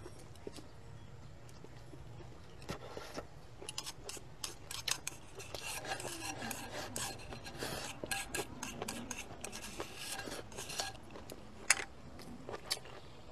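Chopsticks scraping and clicking against a ceramic bowl as the last scraps of chopped chili and garlic are shovelled into the mouth. A busy run of quick scrapes and taps fills the middle of the stretch.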